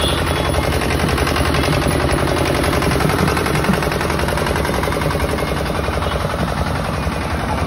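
A long string of firecrackers going off in a rapid, continuous crackle of small bangs.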